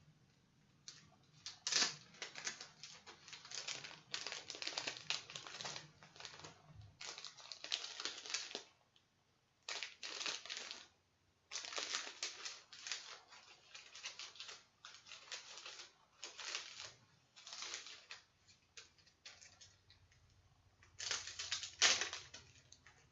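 Plastic packaging crinkling and rustling in irregular bursts as items are handled and unwrapped, with short pauses between the handling.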